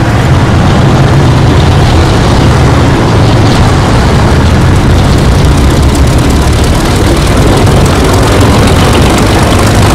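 T-34 tank driving, its heavy diesel engine running loud and steady with a deep low drone.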